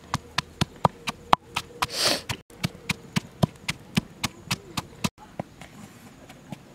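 Wooden pestle pounding red chilies, garlic and salt in a stone mortar: a steady run of sharp knocks, about four a second, which turn fainter after about five seconds. A brief rushing noise comes about two seconds in.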